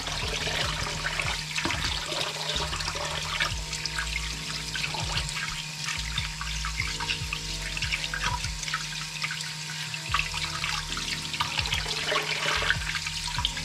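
Kitchen tap running into a plastic bowl of water in the sink, while hands rub and squeeze turkey hearts and gizzards under the stream, splashing frequently.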